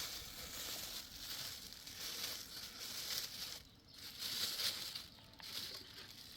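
Dry rustling and crunching, as of brittle material being handled or crushed, coming in irregular swells roughly once a second.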